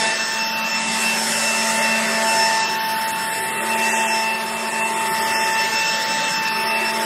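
Snapfresh battery-powered leaf blower running steadily as it blows debris off a concrete sidewalk: an even rush of air with a steady electric whine on top.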